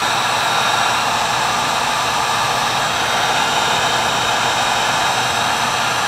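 Electric heat gun running steadily, a loud, even rush of blown hot air, as it shrinks heat-shrink tubing over a wire splice.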